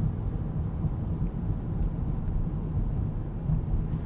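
Steady deep rumble of a car driving along a road: engine and tyre noise with no distinct events.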